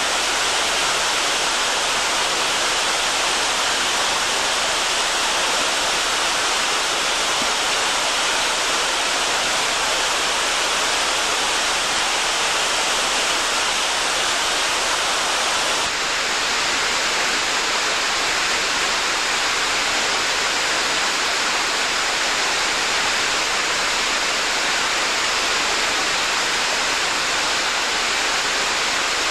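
Steady rush of water cascading over a stepped weir, with no let-up, changing slightly in tone about halfway through.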